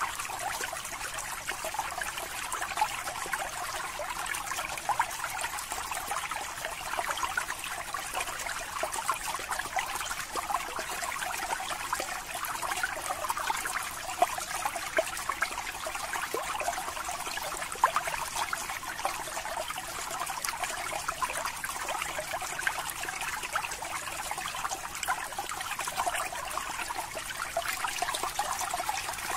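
Aquarium water trickling and bubbling steadily, with many small pops and splashes.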